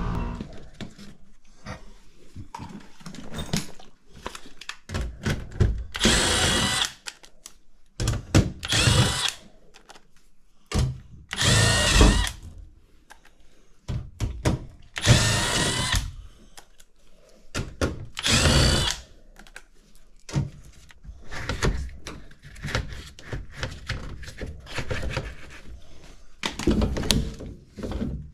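Handheld power drill running in repeated short bursts, about seven of them, each spinning up with a rising whine, with clicks and handling noise in between.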